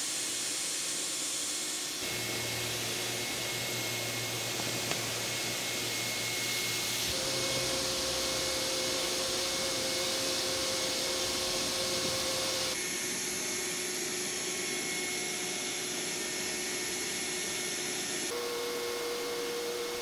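Small shop vacuum running steadily, its exhaust air blowing into a large tarp bag to keep it inflated under the car. It makes a continuous rushing hiss with a steady whine, and the sound shifts abruptly several times.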